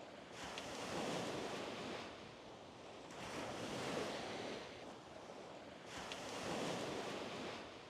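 Sea waves washing onto a beach, the surf swelling and ebbing about every three seconds.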